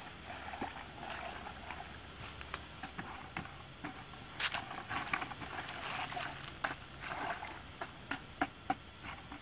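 Leaves rustling and crackling as a hand pushes them down into a plastic bucket, with scattered sharp clicks that come thicker from about halfway through.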